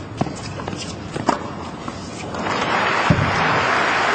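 Tennis ball struck by rackets in a rally, two sharp pops about a second apart, then a stadium crowd breaks into applause as the point ends, rising and holding loud.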